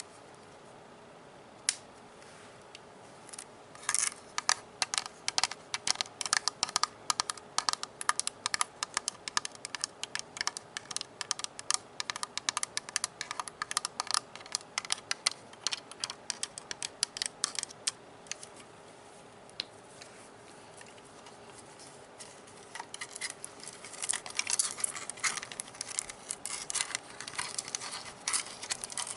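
Fingertips and nails tapping rapidly on the hard plastic body of a Nerf toy gun, in quick runs of sharp clicks. The tapping pauses for a few seconds past the middle, then comes back denser near the end.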